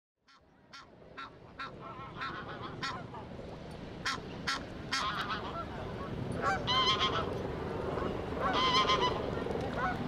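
Canada geese honking: a run of short honks, then two longer, louder honking calls in the second half, over a steady background noise. The sound fades in over the first couple of seconds.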